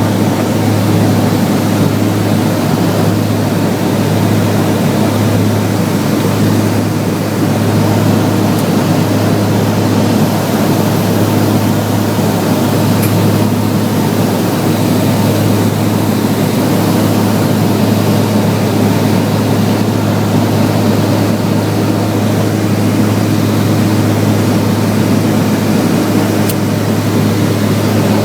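Cessna 402B's twin piston engines and propellers running steadily on final approach: a constant drone built on a strong low hum, with a few steady higher tones above it.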